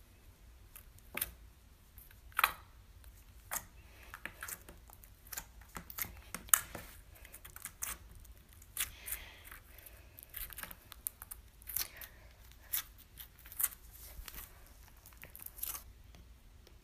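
Slime being poked and pressed with fingers, trapped air popping out in sharp, irregular clicks and crackles.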